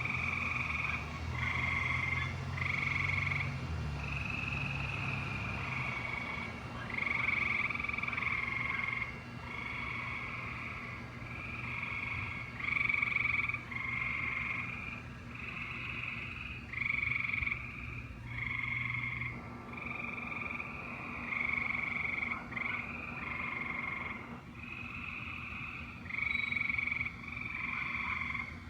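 A chorus of frogs calling, overlapping calls of about a second each following one another without a break. A low steady hum runs underneath and stops about two-thirds of the way through.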